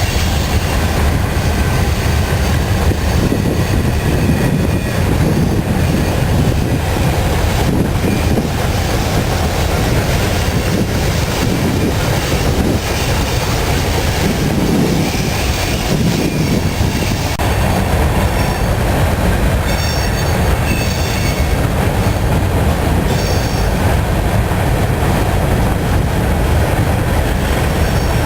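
A CSX freight train's cars rolling steadily past, the wheels rumbling and clacking over the rail joints. Brief high-pitched wheel squeals come in about two-thirds of the way through.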